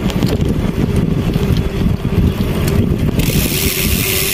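Wind buffeting the microphone on a moving motorcycle, a loud, irregular low rumble over the road and engine noise. About three seconds in, a loud high hiss joins and runs on past the end.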